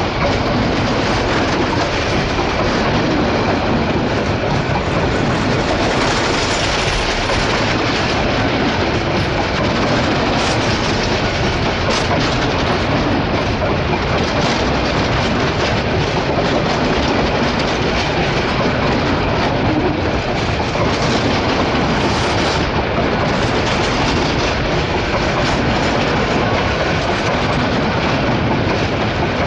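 Bangladesh Railway passenger coaches running past at close range without stopping: a loud, steady noise of wheels on rail, with the clickety-clack of wheels passing over the rail joints.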